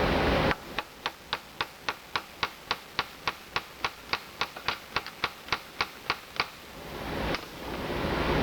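A rapid, even run of about twenty sharp mechanical clicks, roughly four a second, after a steady background noise cuts out suddenly; one last click comes near the end.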